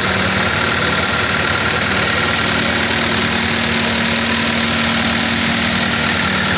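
Bulldozer's diesel engine running steadily at idle, with a constant low hum.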